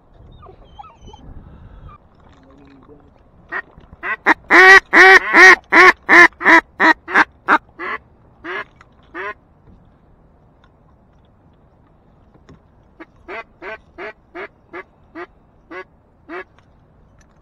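Mallard duck call blown in a descending series of quacks: a loud, fast run about four seconds in that slows and fades, then a second, softer and slower run near the end.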